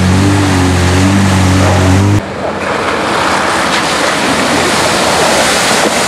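A Lada Niva's engine held at high, steady revs as it churns through deep mud. It cuts off abruptly about two seconds in, giving way to a loud rushing wash of mud and water splashing as a Mitsubishi Pajero ploughs through the flooded ruts.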